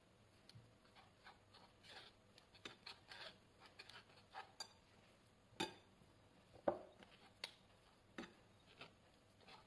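A metal spoon scraping and pressing cottage cheese through a fine wire-mesh sieve. It makes soft repeated scrapes, with a few sharper clicks of metal on the sieve or the glass bowl. The loudest click comes about two-thirds through.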